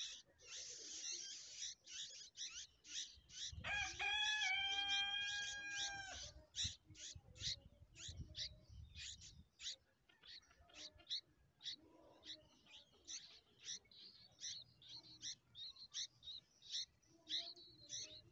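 Red-vented bulbul nestlings begging with short, high-pitched cheeps repeated about two or three times a second: hungry chicks calling to be fed. About four seconds in, a rooster crows once, a single long call of steady pitch lasting over two seconds and louder than the chicks.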